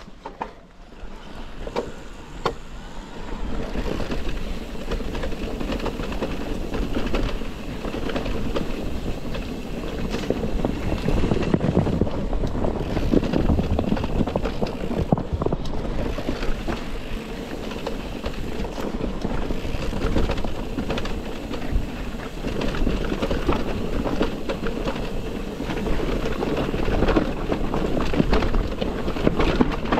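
Electric mountain bike ridden over a rough trail: continuous tyre noise on stones with the bike rattling over bumps, and wind on the microphone.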